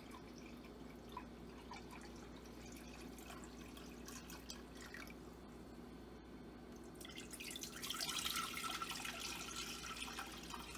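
Water poured from a plastic pitcher into a glass measuring cup, trickling faintly, then about seven seconds in the cupful of water poured into a cooking pot, a louder splashing that stops just before the end.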